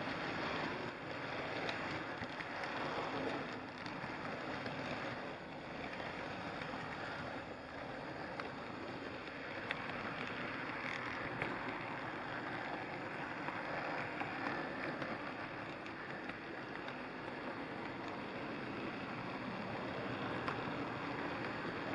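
HO scale model train running along its track, heard from a camera riding on board: a steady rumble of wheels and motor with a few light clicks.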